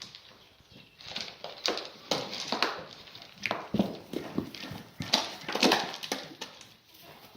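Black goats moving about in a pen: hooves clattering in irregular clusters, with a few short bleats mixed in.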